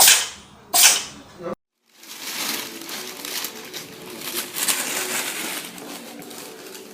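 A cat sneezing twice in quick succession, two sharp bursts less than a second apart. After a short gap, a steady rustling, crinkling noise with faint voices.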